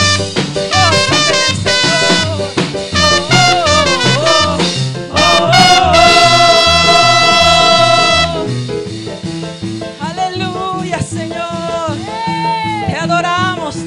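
Live worship band playing an instrumental break: a trumpet leads the melody over bass, drum kit and keyboard, holding one long high note about six seconds in. After that the band plays on more softly.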